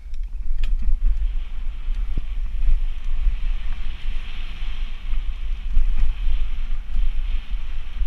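Wind buffeting a mountain bike rider's action-camera microphone with a heavy low rumble, over the steady hiss of knobby tyres rolling on a dry dirt trail; a couple of sharp clicks about half a second in.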